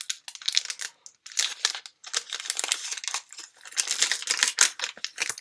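Foil Pokémon trading-card booster pack wrapper crinkling and tearing in irregular crackly rips as it is pulled open by hand; the wrapper is tearing raggedly rather than opening cleanly.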